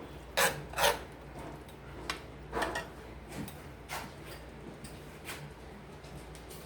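A utensil knocking against a cooking pan, irregular clinks while a simmering sauce is tended, the two loudest about half a second apart near the start. A faint steady low hum runs underneath.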